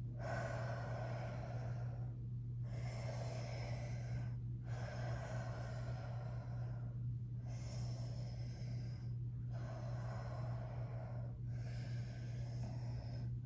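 A person breathing deeply and rhythmically through the nose during a yoga pose, each breath about two seconds long with a brief pause between. A steady low hum runs underneath.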